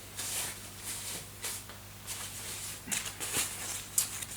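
Rustling and crinkling of packaging being handled in short bursts, with a few sharp clicks about three and four seconds in, over a steady low electrical hum.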